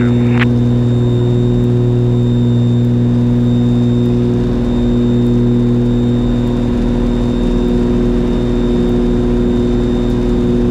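Twin piston engines and propellers of a Piper Aerostar 700 running steadily in flight, heard from inside the cabin as an even, unchanging drone.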